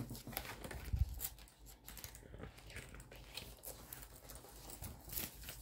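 Paper rustling and light clicks of items being handled on a tabletop, with a soft thump about a second in.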